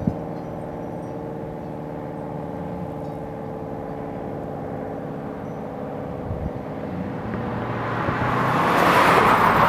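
A steady hum of several level tones fades away over the first several seconds. Then a car passes close by, its road noise swelling from about seven seconds in and peaking near the end.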